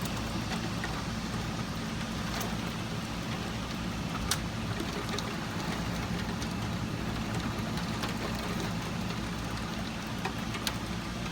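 Steady heavy rain falling and pattering on surfaces, with scattered sharper drop hits and a low rumbling undertone.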